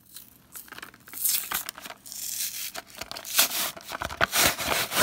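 Plastic-and-cardboard blister pack of a trading-card collection being pulled and torn open by hand, in several noisy bursts with the loudest near the end. The packaging is resisting being opened.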